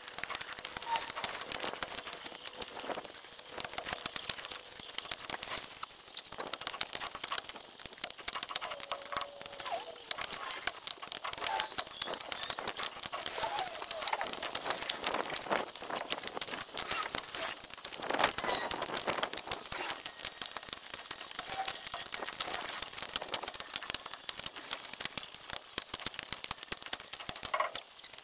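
Firewood being handled and stacked, heard at twenty times normal speed: the knocks and clatter of logs being set in place run together into a fast, dense crackle, with a few short squeaky blips.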